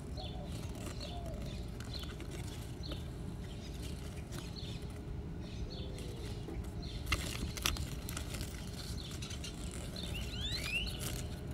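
Quiet outdoor ambience with a steady low rumble, a few faint rustles and clicks of a folded paper leaflet being handled, and a bird chirping briefly near the end.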